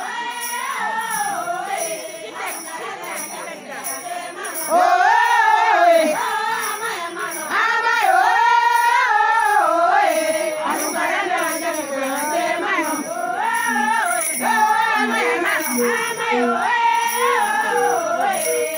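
Group of women singing together, with a rhythmic metallic jingling keeping time.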